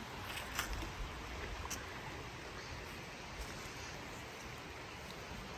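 Steady rushing of a nearby creek, with a few faint clicks in the first two seconds.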